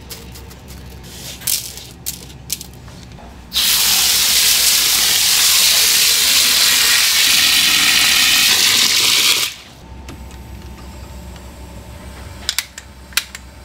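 Water pouring steadily onto a large pan of red beans, starting about three and a half seconds in and stopping suddenly about six seconds later. Before it, light clicking and rattling of beans in a mesh strainer; near the end, a few sharp clicks as the gas burner's valve under the pan is turned.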